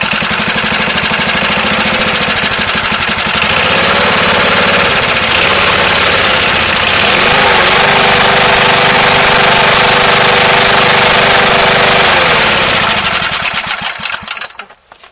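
A 1981 Toro Whirlwind push mower's small engine runs on propane fed through a modified torch. It speeds up in two steps, then winds down and stops near the end.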